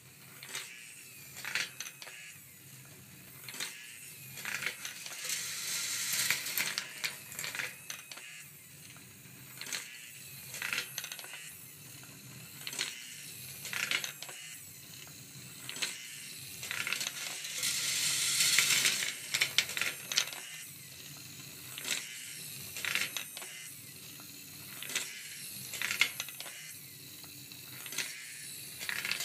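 Steel balls in a wooden marble run machine clicking and clinking as motor-driven lifting stairs step them up and they roll along brass wire tracks, a click or clack coming at a fairly regular pace. Twice a longer, louder run of rattling marks balls rolling along the wire track.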